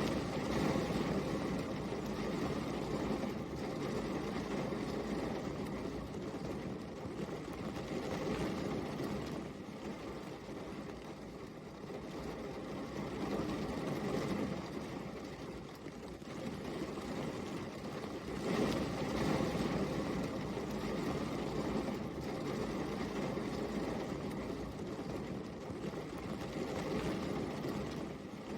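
Steady rain falling, a dense even rush that swells and eases slightly every few seconds.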